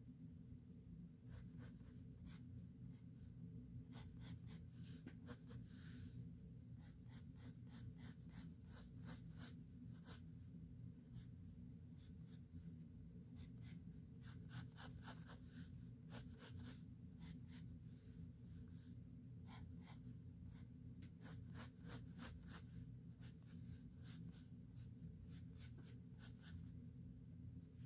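Pencil lead scratching across drawing paper in short sketching strokes, single and in quick runs of several, faint over a low steady background hum.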